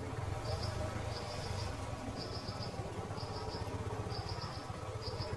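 Insect chirping in short runs of three or four high pulses, repeating about once a second, over a low steady rumble.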